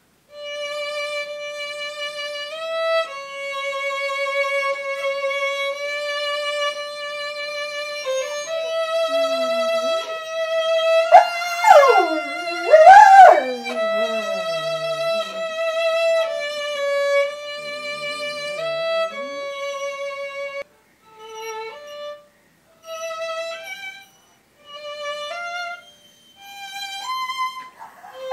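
Solo violin playing long held notes, then shorter separate notes with gaps. A pet dog howls along with it near the middle, rising and falling howls that are the loudest moments, with fainter low howling a little later, and starts another howl right at the end.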